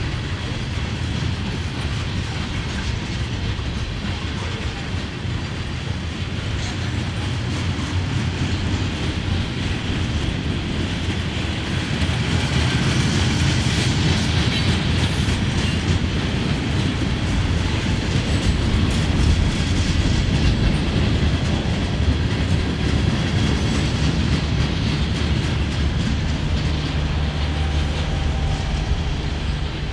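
Freight cars rolling past on the rails: a steady rumble with wheels clicking over rail joints, swelling louder for a stretch around the middle. Tank cars give way to covered hoppers and then refrigerated boxcars.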